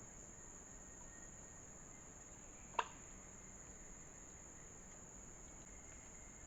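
Steady high-pitched drone of insects, such as crickets, with one sharp click a little under halfway through.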